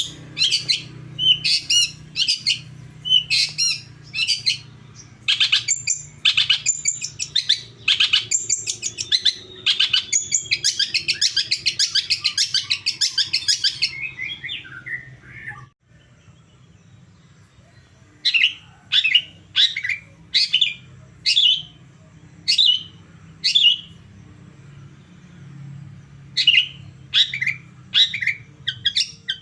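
Long-tailed shrike calling: short sharp notes repeated about twice a second, running into a fast continuous chatter midway, then breaking off for a few seconds before the sharp notes resume. A low steady hum lies underneath.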